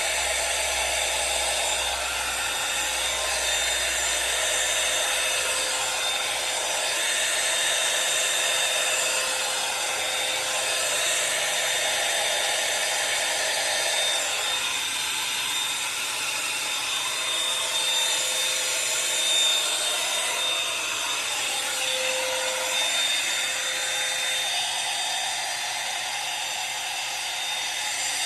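Revlon One-Step hair dryer brush running continuously: a steady rush of blown air with a thin high whine over it. The air noise changes in tone a few times partway through.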